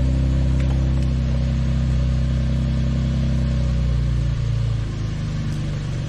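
Car exhaust at a raised idle shortly after start-up, heard from just behind the tailpipe. About four seconds in, the deep rumble eases off a little as the idle starts to settle.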